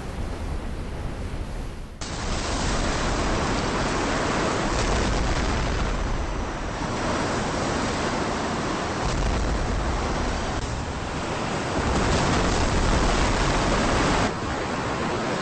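Rushing water and a deep, steady rumble of a tsunami wave surging through a city, as a film sound effect. The sound changes abruptly about two seconds in and again just before the end, at cuts between clips.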